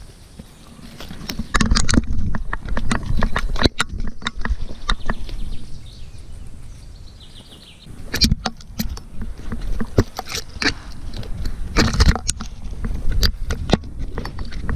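Handling noise from a camera strapped to a running Border Collie: irregular knocks and rubbing against the mount over a low rumble, with paw falls and brushing through moss and twigs on the forest floor. There is a quieter stretch in the middle while the dog slows to sniff the ground.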